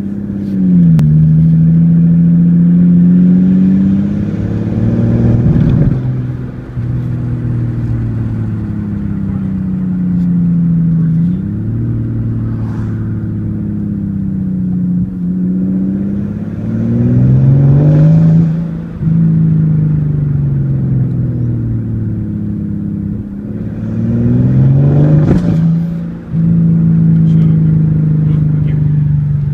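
Mercedes S600's M275 twin-turbo V12 accelerating hard several times. Its pitch climbs and then drops sharply again and again, as under repeated pulls and gear changes. Under heavy load and high boost this engine misfires badly.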